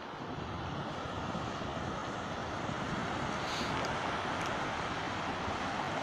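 Steady rushing of breaking surf mixed with wind buffeting the microphone, slowly growing louder.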